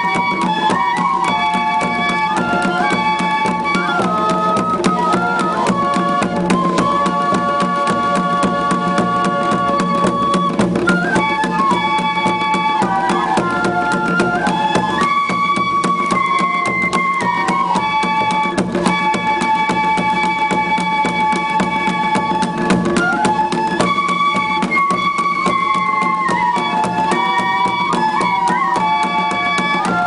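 Suling tambur ensemble: several bamboo flutes play a folk melody together in parallel lines over steady, busy drumming on large drums beaten with sticks.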